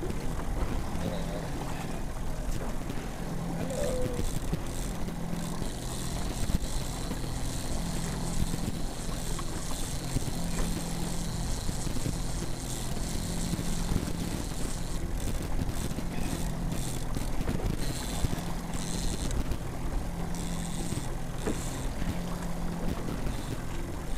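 Boat motor running steadily at trolling speed, its low hum fading in and out every second or so, with wind noise on the microphone.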